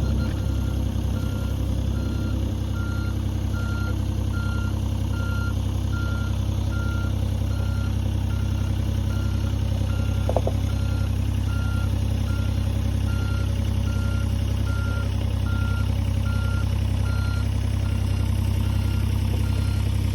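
Rented excavator's diesel engine running at a steady idle-like drone, with a machine warning alarm beeping regularly at one high pitch throughout. About halfway through there is one short squeal.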